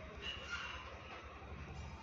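Quiet room tone: a faint low hum under soft background noise, with a brief faint high tone near the start.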